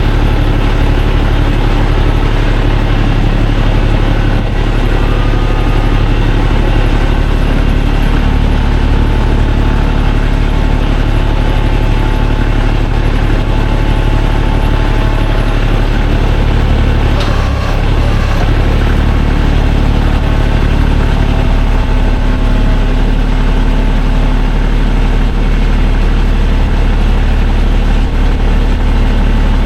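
A vehicle engine running steadily at an even speed, with a short bump or knock about two-thirds of the way through.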